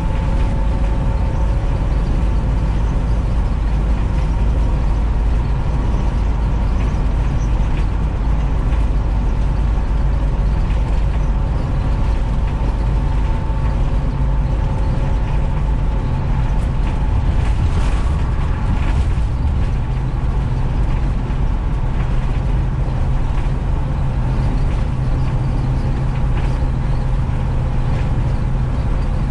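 Short bus cruising at highway speed, heard from inside the cabin: a steady low drone of engine and road noise with a faint whine and a few light rattles.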